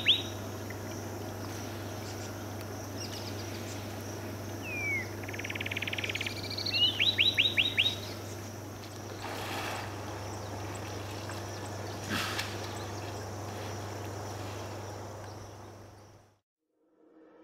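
Birds calling: bouts of rapid chirping notes, the loudest about six to eight seconds in, over a steady low hum. The sound fades out near the end.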